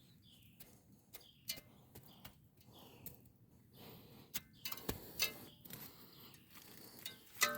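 Footsteps crunching in snow: faint, irregular crunches and clicks, with a louder cluster about five seconds in and again near the end.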